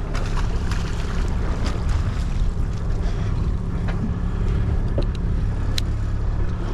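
Boat motor running steadily, with wind on the microphone and a few light clicks and knocks.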